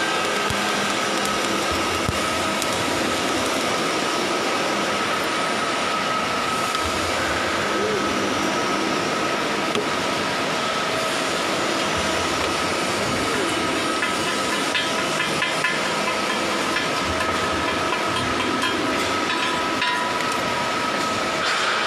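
Steady, loud machinery drone with a constant high whine, the ambient noise of a ship's engine-room workshop. A few faint metallic taps come about two thirds of the way through.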